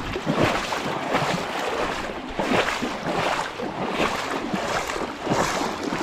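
Shallow river water splashing and sloshing in irregular surges, roughly two a second.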